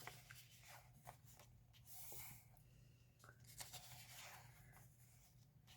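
Near silence with faint paper rustling and a few soft clicks: the pages of an album photo book being handled and turned.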